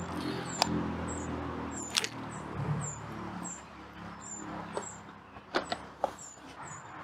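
A low engine hum that fades out over the first three seconds or so. Through it a small bird repeats a thin, high call about twice a second, and there are a few sharp clicks as fishing tackle is handled.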